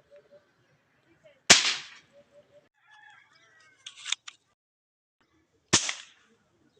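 Toy gun firing twice, about four seconds apart, each a sharp bang that dies away within half a second. A shorter, fainter rasp comes between the two shots.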